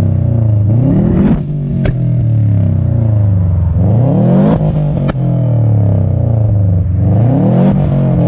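Subaru Impreza's turbocharged flat-four boxer engine blipped three times, each rev rising and falling back, followed by one or two sharp pops and bangs from the exhaust on the overrun. The engine is misfiring, which the owner puts down to worn spark plugs.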